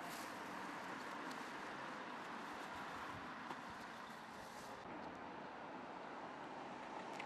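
Faint, steady hum of street traffic, with no distinct events.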